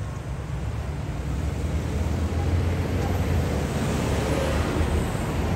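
Low, steady rumble of road traffic, with a heavy vehicle's engine hum underneath, growing louder over the first couple of seconds.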